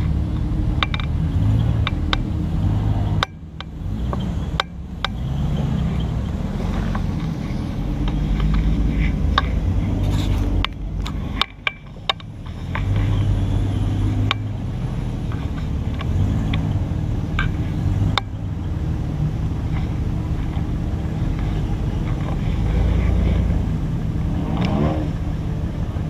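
Off-road Jeep engine running at crawling speed over rocks, with frequent sharp clunks and knocks from the tires and suspension on the rock. A short rising whine near the end.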